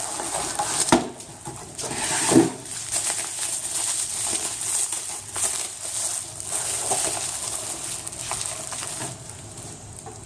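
Packaging rustling and crinkling as a camera lens box is unpacked by hand, with a couple of sharp knocks about one and two and a half seconds in; it grows quieter towards the end.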